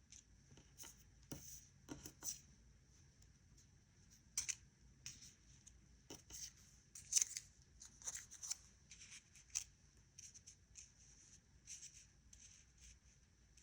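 Small cut cardstock pieces being picked up, slid and set down on a tabletop: light, irregular taps and paper rustles, loudest about seven seconds in.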